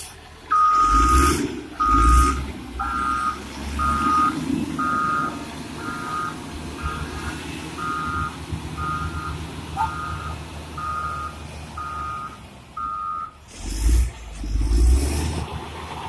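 Caterpillar 120K motor grader's reverse alarm beeping about once a second, about thirteen beeps, then stopping about three seconds before the end, over the low hum of its diesel engine. Loud low rumbles come near the start and again after the beeping stops.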